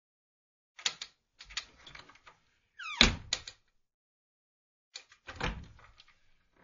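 Wooden cupboard door worked open and shut: clicks and creaks, then a short falling squeak that ends in a sharp knock as the door shuts about three seconds in, and another thud near the end.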